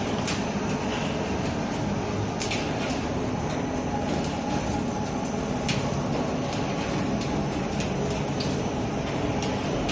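Ridge tile forming machine running with a steady mechanical noise, broken by a few sharp clicks.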